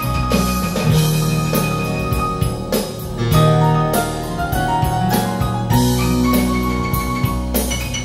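Instrumental music with drums and struck, pitched notes over a strong bass line, played through a pair of ProAc D20r floor-standing loudspeakers driven by Bryston electronics. It is heard in the room rather than fed direct.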